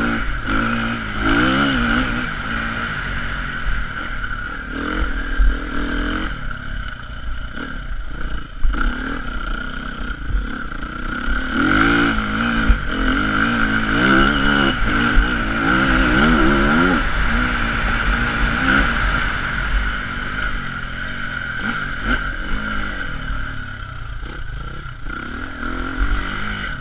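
Dirt bike engine revving up and down as it is ridden hard over a rough dirt track, with the pitch rising and falling most clearly about a second in and again from about twelve to seventeen seconds in. There is wind buffeting on the helmet-mounted camera and there are short knocks from the bumps.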